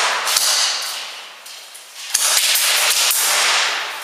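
Airsoft gun firing two rattling bursts in a concrete warehouse: one right at the start, lasting about a second and a half, and another starting about two seconds in and fading out near the end.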